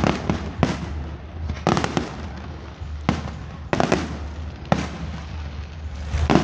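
Aerial firework shells bursting in a display: a run of sharp bangs about once a second, some coming as quick clusters of pops.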